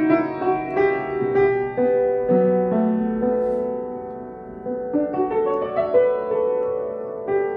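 Solo piano playing a slow, lyrical piece, with notes struck one after another and left to ring out.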